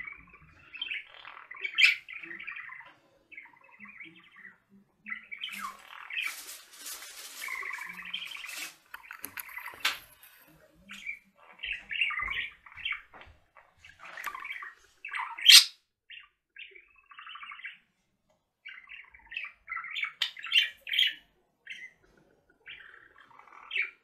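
Budgerigars chattering in quick bursts of short chirps and warbles, with one louder, sharp chirp a little past the middle.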